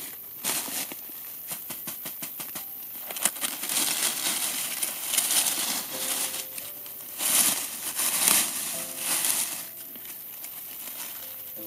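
Dry fallen oak leaves crinkling and crackling as a hand pushes through the leaf litter, in a run of sharp crackles that swell into louder rustles about seven to nine seconds in.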